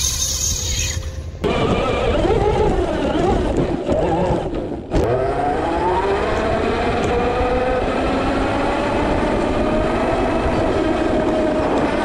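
Traxxas X-Maxx RC monster truck's brushless electric motor and drivetrain whining close up, the pitch rising and falling with the throttle, over a low rumble. The sound breaks off sharply about five seconds in, then the whine climbs and holds steady.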